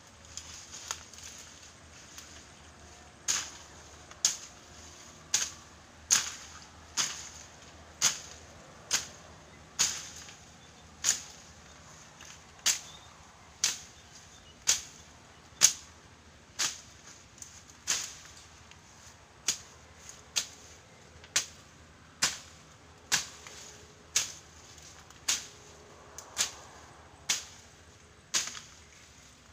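A machete slashing through weeds and grass in quick, sharp swishing cuts, about one a second, starting in earnest a few seconds in: weed-clearing by hand.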